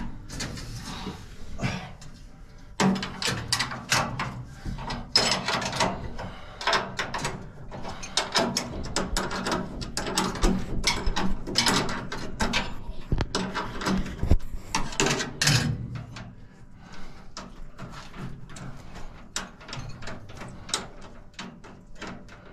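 Rapid metal clattering, knocking and scraping from hand tools and sieve parts being worked in a combine's sieve section. It is dense for most of the stretch, then thins to scattered clicks near the end.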